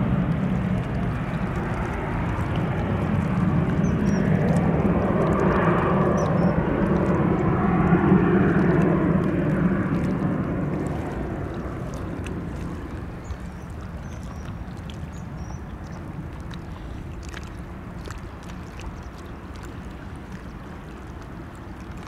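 Twin rear-mounted Williams FJ44-3A turbofans of a Cessna Citation CJ3 business jet climbing away after takeoff: a steady jet rumble that fades away over the second half as the aircraft recedes, leaving a quieter background with a few faint high chirps.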